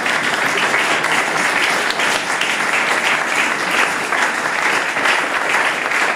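Audience applauding: many people clapping together, a steady, loud patter with no break.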